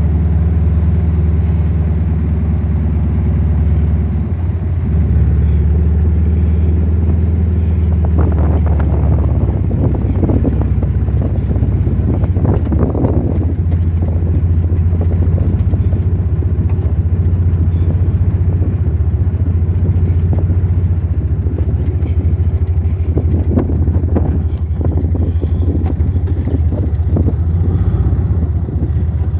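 Vehicle engine running steadily under load on a rough off-road track, its pitch shifting to new levels a few times, with bursts of knocks and clatter from the body and suspension.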